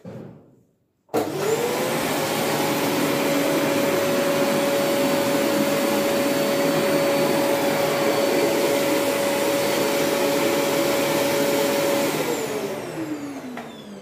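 Amazon Basics 700-watt bagless cyclonic cylinder vacuum cleaner switched on about a second in, its motor quickly reaching a steady whine over the rush of suction air. About two seconds before the end it is switched off and the whine falls away as the motor spins down.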